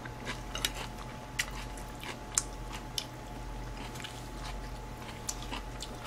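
A person chewing chop steak: soft wet chewing with scattered short mouth clicks, over a faint steady electrical hum.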